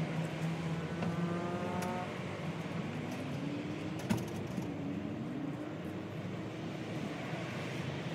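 A motor vehicle's engine running: a steady hum whose higher tones glide up and down, with a sharp click about four seconds in.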